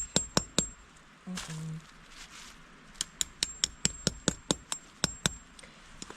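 Hammer striking a metal tent stake, with sharp ringing metallic clinks. There is a quick run of four, then after a pause about ten more at roughly four a second.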